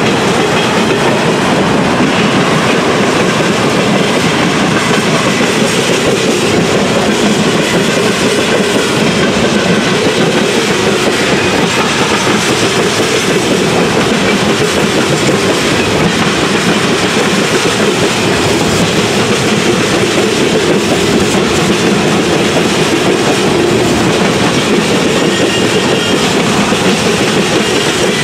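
Freight train cars passing at close range: the steady, loud rumble of steel wheels rolling on the rails, even throughout.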